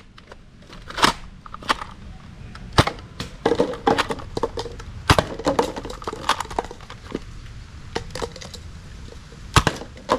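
A plastic toy blaster being handled, giving irregular sharp clicks and knocks, about a dozen in all.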